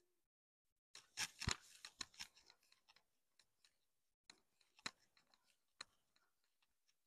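Irregular faint clicks and knocks over near silence. They come in a cluster about a second in and another a little past the middle.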